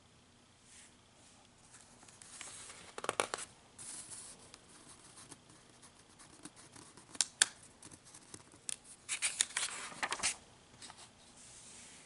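Magazine pages rustling and crinkling as a hand handles and turns them, in several short, irregular bursts, the loudest about three seconds in, around seven seconds, and from nine to ten seconds in.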